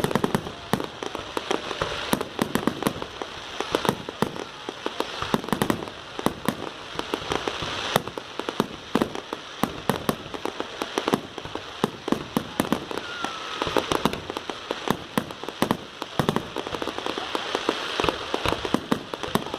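Fireworks display: a dense run of bangs and crackles, several a second, with no let-up.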